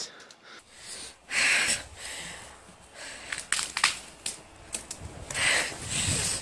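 Footsteps crunching through snow and dry brush, in uneven swells, with a few sharp twig snaps near the middle.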